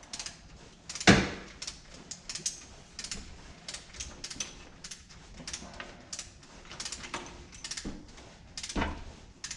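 Metal tools and bolts clicking and clinking against each other during hand work on an engine's cylinder head, with a louder knock about a second in and another near the end.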